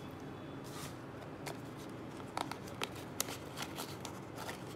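Hands opening a small cardboard box, the card flaps rustling and scraping with a scatter of light clicks, busier in the second half.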